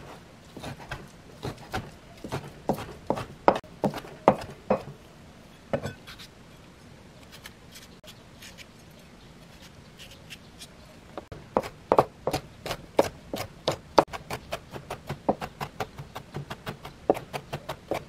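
Chef's knife chopping on a cutting board: irregular knocks while mincing soaked sea staghorn seaweed (cheonggak), a quieter stretch, then from about eleven seconds in a fast, even run of chopping, about three to four knocks a second, as hot chili peppers are minced.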